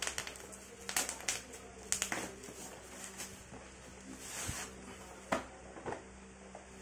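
Black plastic shipping bag crinkling and rustling as it is pulled off a cardboard box, with irregular sharp crackles.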